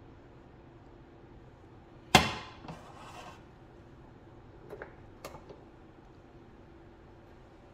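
A pan set down on a glass-top electric stove: one sharp clunk with a short ring about two seconds in, then a brief scrape. A few light clicks and taps follow a couple of seconds later.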